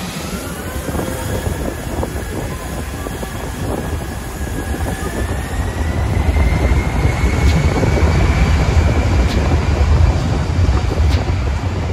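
Aircraft engines running, a deep rumble with a faint whine that slowly rises in pitch, growing louder after about six seconds.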